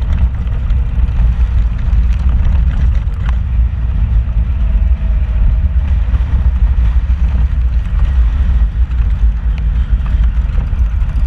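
Vehicle driving over a rough dirt and gravel track: a steady, heavy low rumble of engine and road noise, with a few brief knocks and rattles from the bumps.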